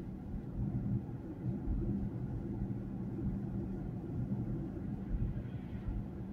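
A car driving at steady speed, heard from inside the cabin: a steady low rumble of engine and tyre noise with a constant low hum.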